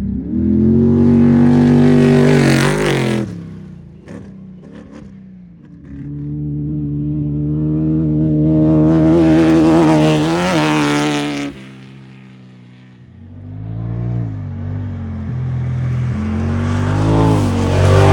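Off-road race vehicles going by one after another, three passes in all. Each engine swells, revs up in pitch and then drops away, with quieter gaps between the passes.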